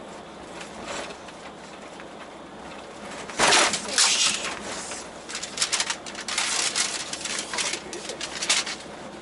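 Truck cab and body rattling and banging over an uneven road surface: a sudden loud jolt about three and a half seconds in, then a run of sharp clattering knocks for about five seconds over a steady driving hum.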